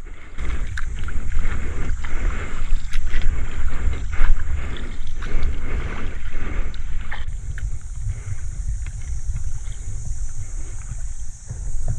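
Sea kayak paddle strokes splashing in the water about once a second, with wind rumbling on the microphone.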